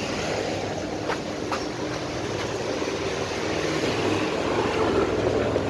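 Steady street noise with a low engine-like hum running under it and a few faint clicks.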